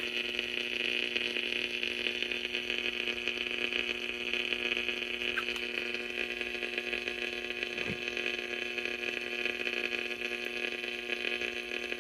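Steady mains hum with a hiss over it from the freshly powered vacuum-tube chassis of a 1938 Zenith Radio Nurse, the old set warming up with no signal yet coming through.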